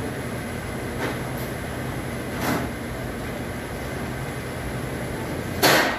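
Steady machinery hum of a commercial kitchen, such as ventilation, with three brief noisy sounds: a faint one about a second in, one mid-way and a louder one near the end.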